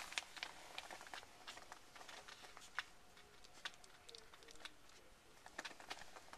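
Faint, irregular clicks and smacks of two-week-old West Highland White Terrier puppies suckling from their mother, with small rustles as they shift on the towel.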